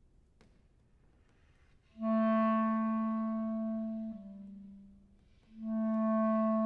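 Unaccompanied clarinet playing slow, long-held low notes. About two seconds in a note comes in and is held, drops a step lower and fades away; near the end a second long note begins and is held.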